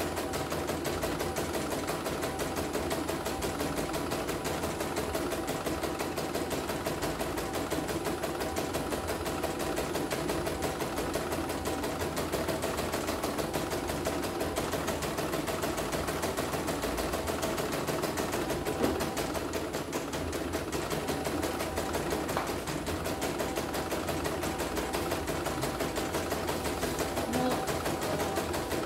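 CNY computerized embroidery machine running steadily, its needle stitching out a design in rapid, even strokes with the hoop stepping under it; a test stitch-out with a newly fitted rotary hook.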